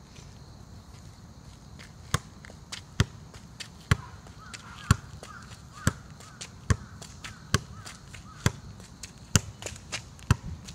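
Soccer ball being kept up with the outside of the left foot, a sharp thud at each touch. From about two seconds in come roughly ten touches, about one a second.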